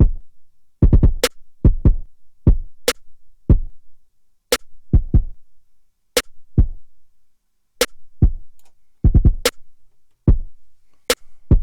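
Drum pattern playing back from Native Instruments Maschine: low drum hits in an uneven pattern, with a sharp, bright hit landing about every second and a half.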